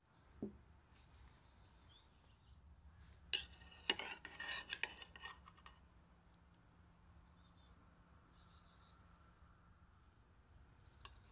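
Faint clinks and scrapes of a metal spoon against a dish for about two seconds, a little past the middle, after a soft thump near the start. A small bird chirps in short, quick, high series every second or two throughout.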